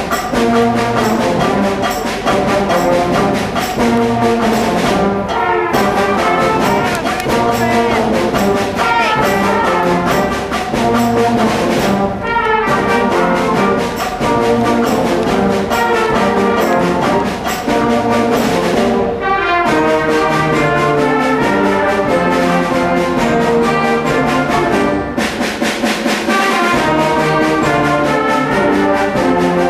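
School concert band playing, with brass to the fore over woodwinds and a steady driving beat.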